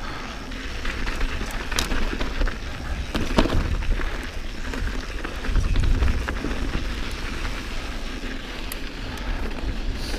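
2019 Santa Cruz Bronson mountain bike ridden along a dirt trail: steady tyre noise with a low rumble, broken by scattered sharp clicks and knocks as the bike rattles over rough ground.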